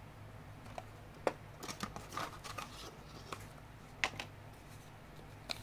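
Scattered light clicks and taps with some rustling, from small objects being handled, over a low steady hum.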